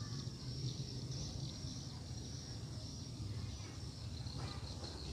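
Steady high-pitched insect chirring, with a low steady hum underneath.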